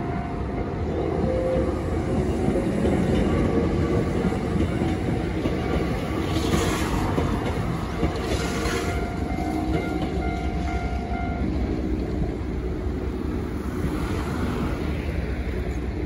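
Hankyu 6000-series commuter train running through a level crossing, its wheels clacking and rumbling on the rails. The crossing's warning alarm rings steadily alongside it and stops about eleven seconds in.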